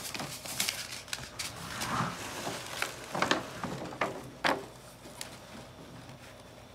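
Clicks, knocks and rattles of a push seeder and a clear plastic tray being handled. There are several sharp taps in the first four and a half seconds, then it goes quieter.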